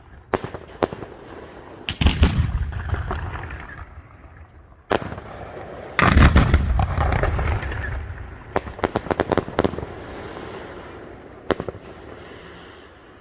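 Fireworks display: aerial shells bursting in loud bangs at irregular intervals, each followed by a fading rumble and crackle, the biggest burst about six seconds in and a quick string of cracks about nine seconds in.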